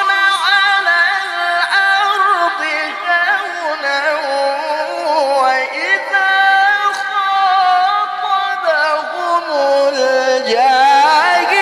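A male Quran reciter (qari) chanting in the melodic tilawah style through a microphone. He sustains long, high ornamented notes that slide up and down and quaver, in one unbroken phrase.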